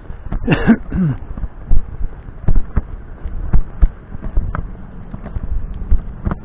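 Footsteps on pavement, sharp and uneven at about two a second. Near the start there is a brief sound that falls in pitch twice.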